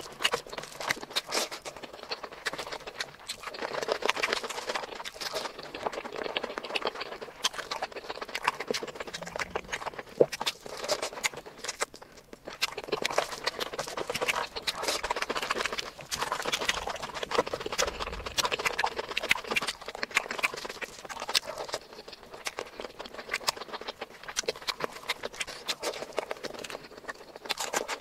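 Close-miked eating sounds of a person eating rice and curry by hand: wet chewing and lip smacking mixed with the squish of fingers working the saucy rice, a dense run of small clicks and smacks that keeps going.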